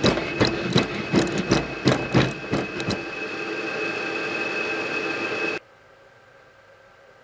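Boston Dynamics Spot robot dog walking: a steady high motor whine with a sharp clicking run, about three clicks a second, from its legs and joints. The clicking stops about three seconds in while the whine holds, then the sound cuts off suddenly to a low hush near the end.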